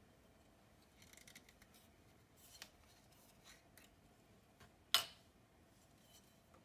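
Metal screw cap being twisted off a glass syrup bottle: a run of faint crackling clicks, then one sharp click about five seconds in as the cap is set down on the counter.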